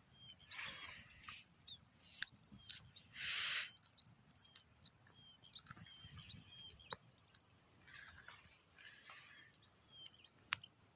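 Small birds chirping repeatedly with short high calls, joined by a few sharp clicks and two brief rushes of noise, the louder one about three seconds in.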